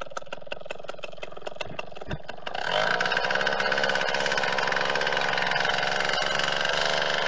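An engine cranking with rapid, even clicks about five a second, then catching about two and a half seconds in and running loud and steady with a fast, buzzing pulse.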